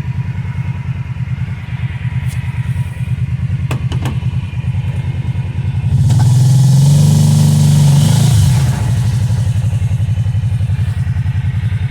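Kawasaki Teryx 800 side-by-side engine idling with a steady pulse. About halfway through the throttle is opened for roughly two and a half seconds, then it drops back to idle.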